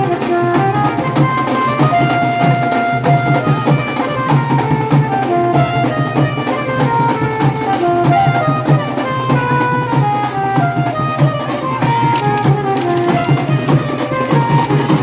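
Music with fast, continuous drumming and a melody stepping up and down over it.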